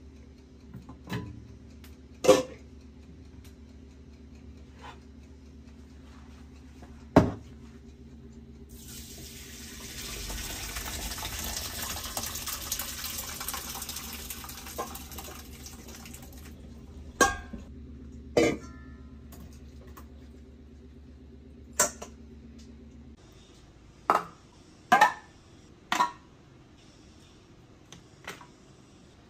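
Cooked sago and its hot water poured from a stainless steel pot into a mesh strainer in the sink, a rushing splash lasting about seven seconds. Metal clanks of the pot and lid come before and after it, over a steady low hum. Near the end come several quick knocks as cans and cartons are set down on a counter.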